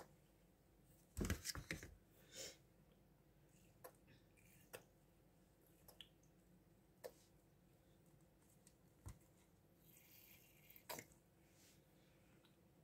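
Faint handling sounds from watering small violet plantlets with a rubber bulb syringe: a short cluster of soft knocks and clicks about a second in, then single light clicks every second or so over near silence.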